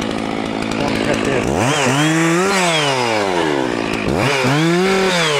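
Stihl MS660 two-stroke chainsaw idling at first, then throttled up twice while cutting a limb. Each time the pitch climbs to full revs and then sags back down.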